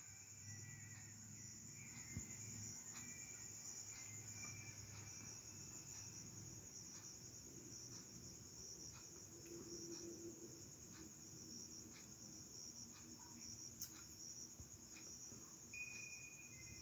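Near silence with the faint, steady, pulsing chirr of crickets throughout, and a few soft clicks.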